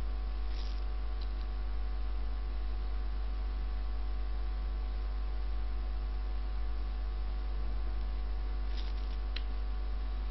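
Steady electrical mains hum with a stack of overtones on the recording, with a few faint computer-mouse clicks about half a second in and again near the end.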